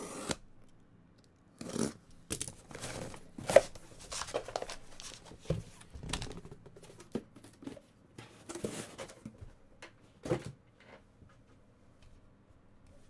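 A cardboard box being slit and torn open with a box cutter, then foil-wrapped trading-card packs pulled out and stacked, rustling and crinkling. The sound comes in irregular bursts of tearing and sharp clicks, loudest a few seconds in, and stops about two seconds before the end.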